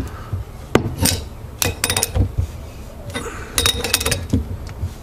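Steel hand tools clinking against the rivnut installation tool: a scattered series of sharp metal clinks, a few ringing briefly, as an Allen key and a wrench are fitted onto it to hold it.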